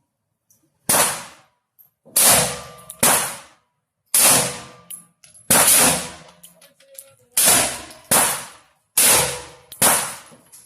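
Double-barrel AR-15 rifle firing about ten shots at an uneven pace, roughly one a second, each with a ringing, decaying echo. The string ends with the bolt locking open on the last round.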